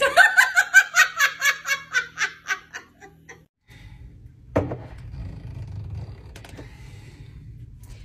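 A woman laughing hard in quick repeated bursts for about three seconds. After a short gap comes a single thump, then a low steady noise.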